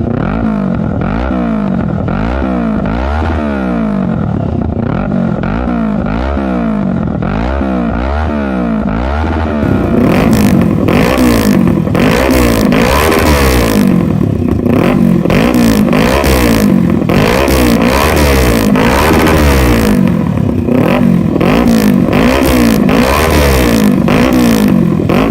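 Kawasaki Z650's parallel-twin engine running through an aftermarket Drift Xaust exhaust, blipped over and over so the pitch rises and falls about once a second. About ten seconds in it gets louder and harsher.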